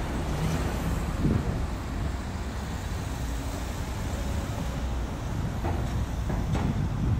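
Road traffic on a busy city street: a steady rumble of passing vehicles.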